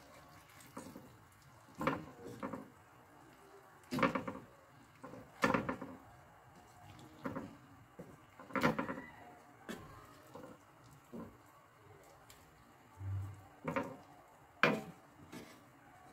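Wooden spatula knocking and scraping against a frying pan of chicken in thick sauce, in short irregular strokes a second or two apart, with a dull low thud about 13 seconds in.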